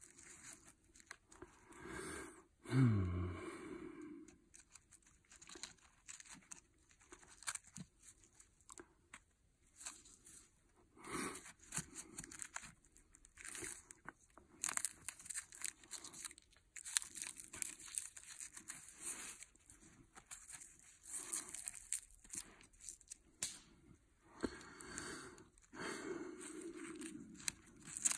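Irregular rustling, crunching and sharp clicks of wooden poles and cord being handled while a fire tripod is put together. About three seconds in comes a brief low sound falling in pitch, the loudest moment.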